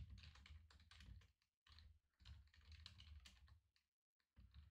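Faint typing on a computer keyboard: a quick run of key clicks, with two brief pauses.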